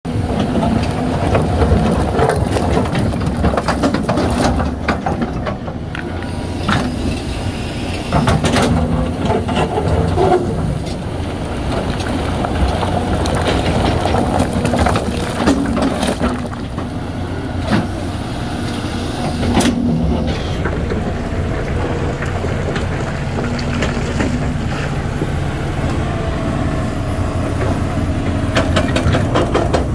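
Hitachi ZAXIS 350LC-N excavator's diesel engine running, swelling and easing in level, with a whining tone at times and scattered sharp knocks and clanks.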